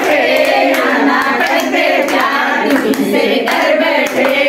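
A group of women singing together while clapping their hands along in time.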